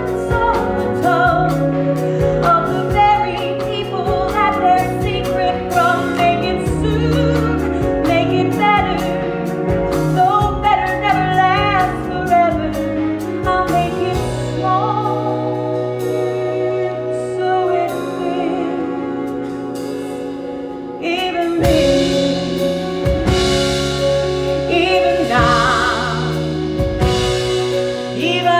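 A woman singing a musical-theatre song live on stage with a band.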